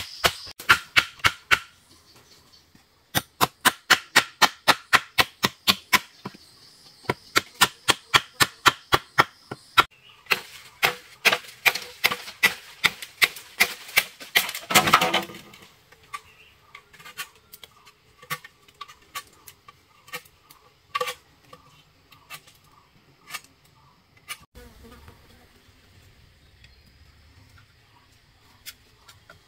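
Quick, evenly spaced strikes of a hand tool, about four or five a second, in runs of a few seconds with short pauses, ending in a crackling rustle about fifteen seconds in. After that, only scattered faint taps and clicks.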